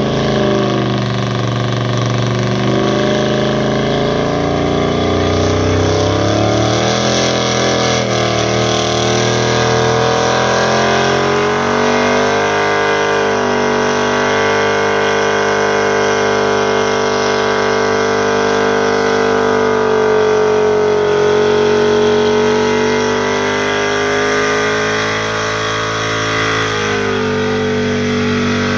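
Pickup truck engine held at high revs during a burnout, spinning the rear tyres into smoke. The revs rise and fall over the first ten seconds or so, then hold steady, with a short dip near the end.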